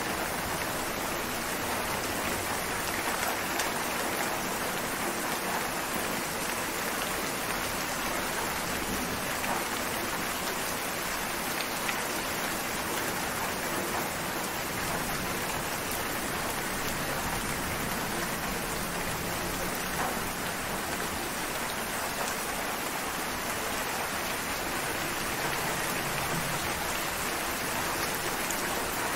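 Steady rain falling, an even hiss with individual drops ticking now and then.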